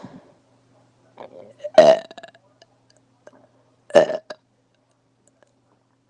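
A woman burping: two short, loud burps about two seconds apart, the first a little under two seconds in and the second about four seconds in.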